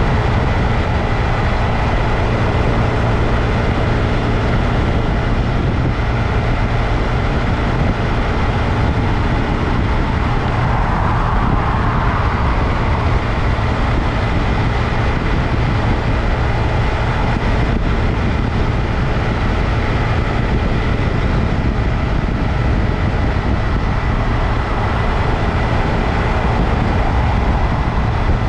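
2022 Honda Grom's single-cylinder engine running steadily while the bike is ridden, with heavy low rumble of wind and road noise and a faint steady high tone throughout. The sound swells briefly in the middle.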